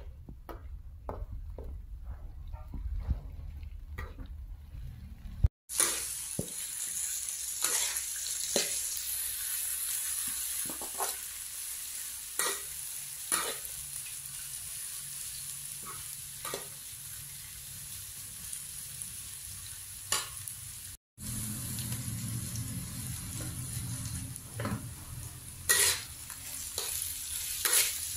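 Chillies, lime leaves and shredded aromatics sizzling in oil in an aluminium wok, with a metal spatula scraping and clicking against the pan as they are stirred. The sound drops out briefly twice.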